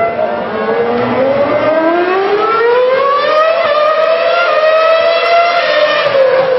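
Formula One cars' 2.4-litre V8 engines at high revs, their shrill pitch climbing steadily for about five seconds as they accelerate, then dropping near the end.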